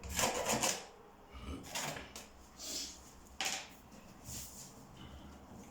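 Wood being handled during floor repair: several short scrapes of wood on wood and a sharp knock about three and a half seconds in.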